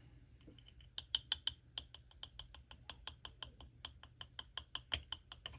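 A small clear plastic cosmetic jar of loose eyeshadow being twisted and handled in the fingers, giving a quick run of light plastic clicks, about six a second, starting about a second in.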